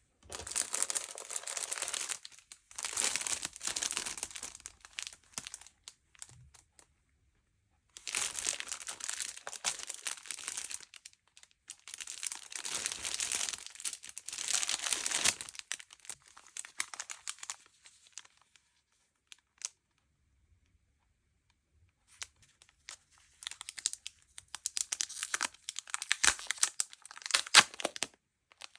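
Packaging crinkling and tearing as merchandise is unwrapped by hand, in several bouts with short pauses between, ending with a run of sharp crackles.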